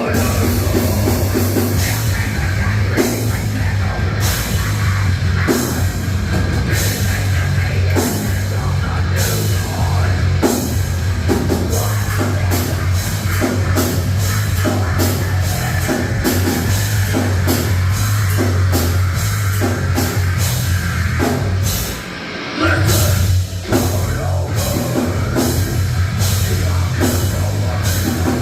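A rock band playing heavy rock live, with a drum kit and a strong, steady bass line. About three-quarters of the way through the band drops out briefly, then crashes back in.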